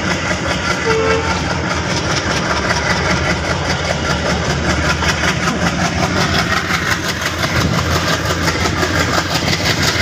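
ALCO 16-cylinder diesel engine of an Indian Railways WDM3A locomotive chugging under load, a steady rhythmic throb heard close up on the locomotive as it pulls the train.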